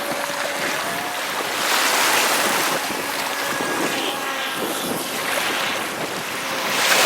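Sea waves washing in, swelling about two seconds in and again near the end, with wind buffeting the microphone. A faint wavering whine from the FT009 RC speedboat's electric motor is heard in the first second.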